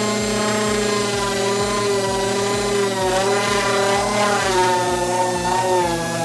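Air-powered sander running against the truck's sheet-metal body, a steady whine whose pitch wavers down and back up as it is worked over the panel.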